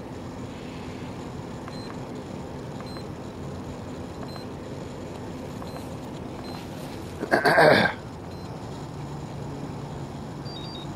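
Short, faint beeps from a hobby battery charger as its buttons are pressed, spaced a second or so apart, over a steady low hum. About seven seconds in, a loud sound lasting under a second stands out above everything else.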